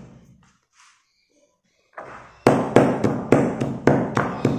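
Stone pestle pounding broken slate pencils in a stone mortar. After a brief pause, rapid crunching strikes start about two seconds in, roughly three or four a second.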